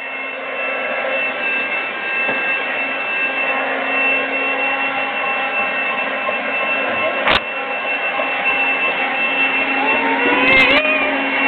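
Vacuum cleaner running steadily with a constant whine. A single sharp knock comes about seven seconds in, and a short voice sounds near the end.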